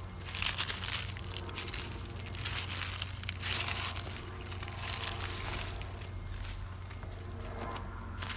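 Footsteps crunching through dry fallen leaves: a few separate crackly crunches rather than an even rhythm, the loudest about half a second in and again around three and a half seconds in.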